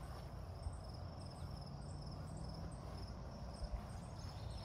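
Insects chirping in high, regular pulses, over a low background rumble.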